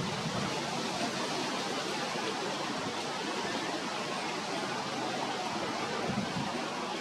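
Steady, even rushing noise with no distinct calls or knocks.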